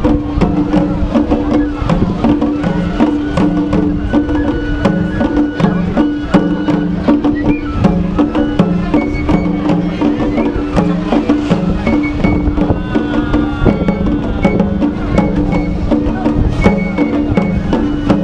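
Japanese festival parade drumming: a large barrel taiko and small shoulder-slung drums struck with sticks in a busy, steady rhythm of sharp hits, over a repeating traditional melody with short high notes.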